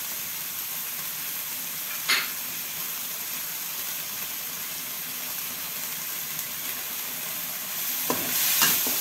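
Blended spice paste sizzling steadily in a wok, with a single sharp knock about two seconds in. Near the end a metal spatula starts stirring and scraping the paste in the wok.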